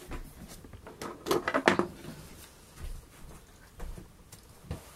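A few soft clicks and knocks from makeup items being handled, with a louder cluster of taps about a second and a half in.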